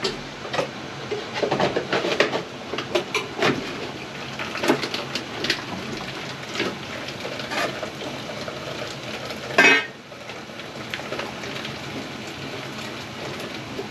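Irregular metallic clanks and knocks, with one loud clank about ten seconds in, over a steady hiss of running water as water is drained from a steam boiler to test its low water cutoff.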